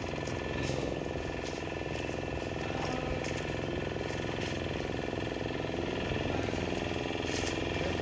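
Motorboat engine running steadily with a continuous low chug.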